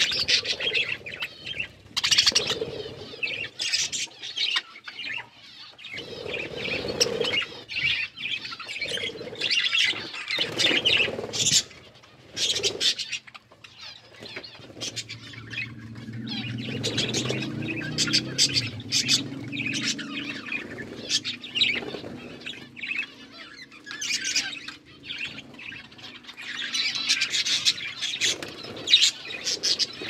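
A flock of budgerigars chirping and chattering, with many short clicks and rustles as they feed.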